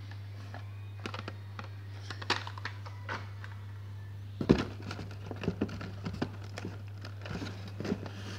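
Hot Wheels blister-pack cards being handled and pulled from a cardboard shipping case: scattered light clicks, crinkles and taps, with one louder knock about four and a half seconds in. A steady low hum runs underneath.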